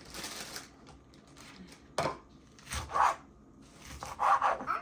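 Lettuce being cut up by hand: a sharp tap about two seconds in, then a few short, rough cutting strokes.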